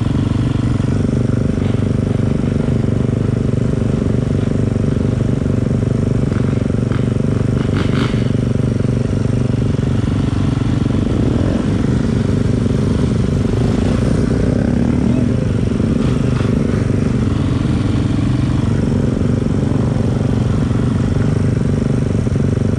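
Dirt bike engines idling steadily, with a few brief rises in engine pitch about halfway through.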